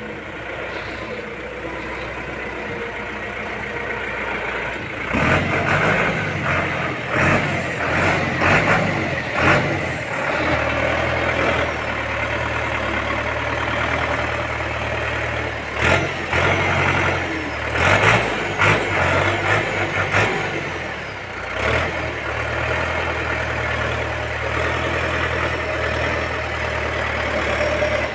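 John Deere 5715 tractor's diesel engine running steadily as the tractor is driven and steered, with a run of loud knocks and rattles about five to ten seconds in and again around sixteen to twenty-two seconds in.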